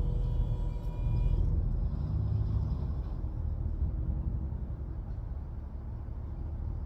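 Low, steady engine rumble, like a vehicle running. A set of high steady tones stops about a second and a half in.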